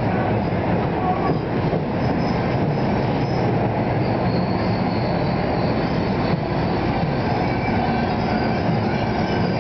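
NJ Transit multilevel coaches rolling slowly into the platform, a steady rumble and clatter of wheels on rail as the train slows to stop. A thin high squeal from the wheels and brakes joins in about four seconds in.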